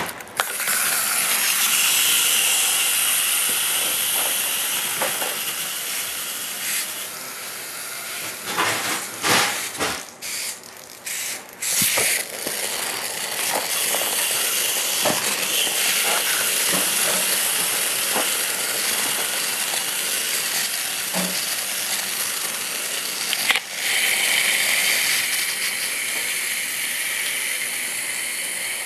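Clockwork wind-up hopping toys running on carpet, several spring motors whirring with a fast ratcheting buzz. The whirr stops and starts a few times around a third of the way in, then runs steadily again.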